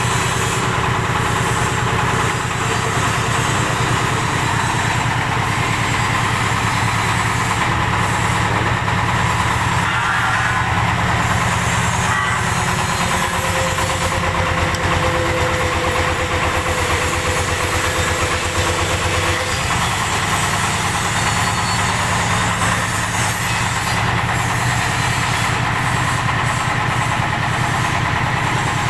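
Paving block (conblock) machine running steadily on a trial run, its engine going without a break.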